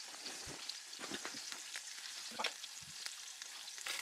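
Campfire burning in a fire pit, crackling: a faint steady hiss with scattered small pops.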